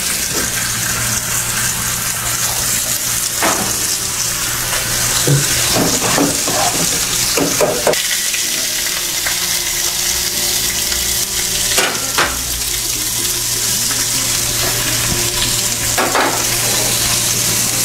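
Beef rump steak sizzling on a ridged grill pan over a gas burner, a steady hiss over a low hum, with a few short knocks now and then.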